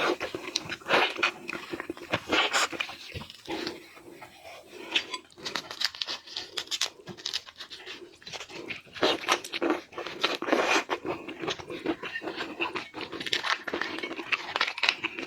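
Shrimp being handled and peeled by hand: a dense run of crackling shell snaps and wet squishing sounds.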